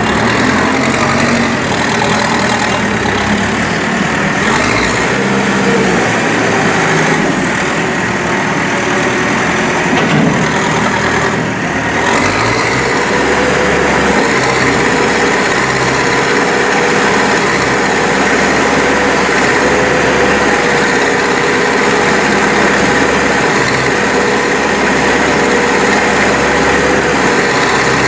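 Diesel engine of a Manitou Terex backhoe loader running, its pitch shifting a little during the first dozen seconds and then holding steady.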